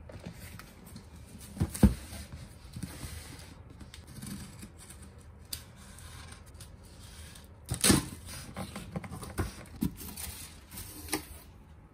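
Cardboard shipping box being handled and opened: a thump as it is set down about two seconds in, then a box cutter slicing the packing tape and the cardboard flaps pulled open, with scrapes, knocks and rustling.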